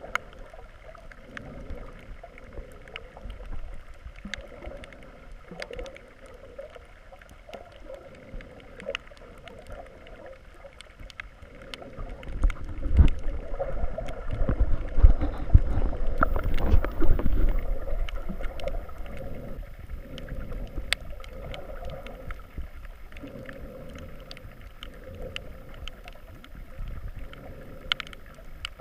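Sea water heard from below the surface: a muffled, steady wash with scattered faint clicks and crackles, and a louder low rumble of moving water in the middle.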